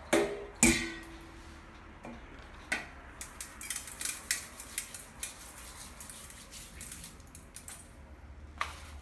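Kitchen dishes and utensils handled on a counter while frozen fish is salted. Two sharp clatters come within the first second, the second leaving a brief ringing tone, followed by a run of light clicks and scrapes.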